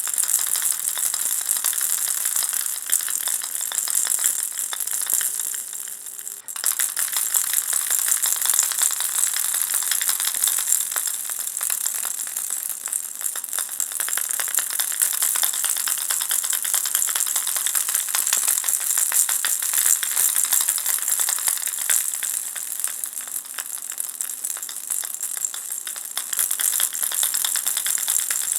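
Baby ball rattle shaken continuously, a dense, rapid, high-pitched rattling of small beads inside a ball. It dips and breaks off for a moment about six and a half seconds in, then carries on steadily.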